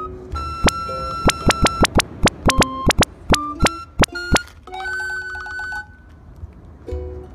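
A quick run of sharp, dry percussive clacks, about fifteen in under four seconds, among short pitched notes, followed by a brief held chime-like chord.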